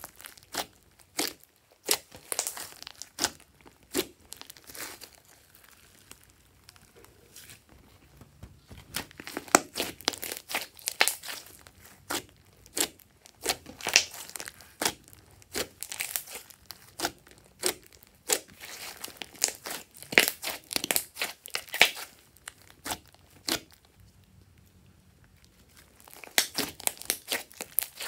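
Hands kneading and stretching a large mass of glossy slime, giving a run of sharp, sticky pops and clicks. The pops grow sparse and quiet for a few seconds twice, about a fifth of the way in and again shortly before the end.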